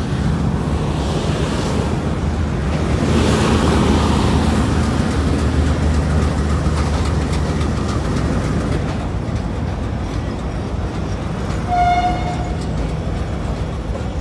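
Diesel locomotive engine running with a steady low drone and rumble as the train passes beneath the footbridge. Near the end comes one short horn toot.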